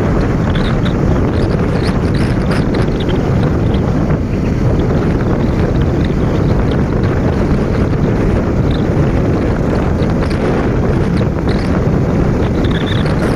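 Steady wind rush buffeting the microphone of a moving motorcycle, with the bike's engine and tyre noise underneath.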